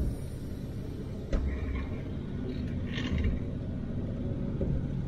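Pickup truck's diesel engine idling with a low, steady rumble, heard from inside the cab, with one sharp click just over a second in.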